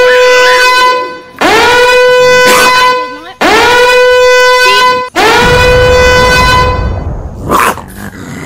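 A series of loud horn blasts, about one every 1.8 seconds. Each swoops up to a steady, buzzy note and holds for about a second and a half. A short, sharp sound comes near the end.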